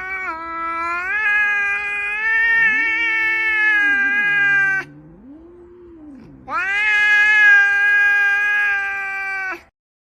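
Cat yowling in two long, drawn-out calls. The first runs until about five seconds in and the second starts about a second and a half later. Between them is a quieter, low, wavering moan.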